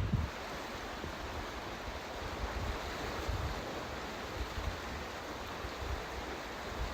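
Steady wash of sea surf, with gusts of wind buffeting the microphone as low irregular rumbles.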